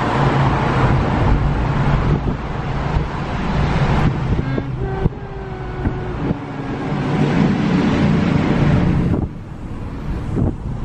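Steady road noise of a car driving through a road tunnel, heard from inside the cabin: tyre and engine hum with a dense rushing haze. About nine seconds in it drops noticeably as the car leaves the tunnel.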